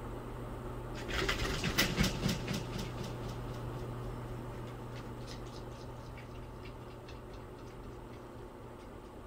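Crackly rustling and scratching of a quilted fabric mat as a cat scrambles in its folds, loudest about a second in, thinning out into scattered light clicks of paws and claws on the mat. Under it runs a faint steady hum.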